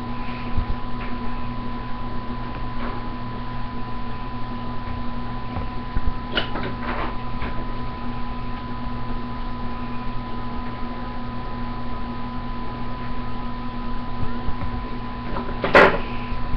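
Steady electrical hum from an appliance or fan in the room, with a few light knocks of plastic toy horses being handled, about six and seven seconds in and a louder one near the end.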